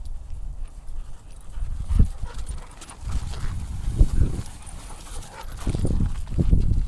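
Two dogs running flat out through tall grass close by: thudding paw falls and swishing grass, loudest about two, four and six seconds in, over a steady low rumble.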